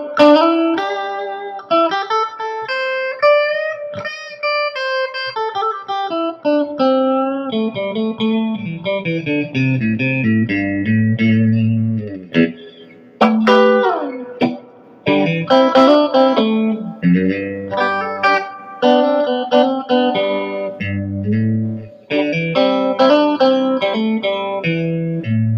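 Electric guitar played through a Fender Deluxe Reverb tube amp, being test-played after a repair: picked single-note lines and chords with a few sliding notes.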